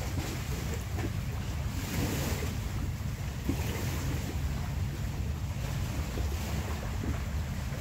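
Wind buffeting the microphone with a steady low rumble, over the washing hiss of small waves on the shore that swells and fades every second or two.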